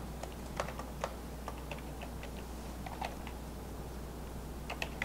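Computer keyboard being typed on slowly: scattered, irregular key clicks, over a low steady hum.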